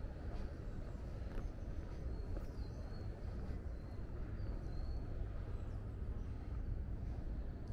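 Outdoor ambience: a steady low rumble with a few short, faint bird chirps.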